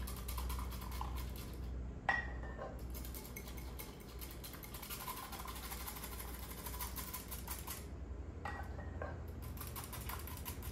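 Metal whisk beating egg yolks in a glass bowl: rapid, steady clicking against the bowl, with two brief pauses. The yolks are being whisked nonstop while warm milk is dribbled in to temper them.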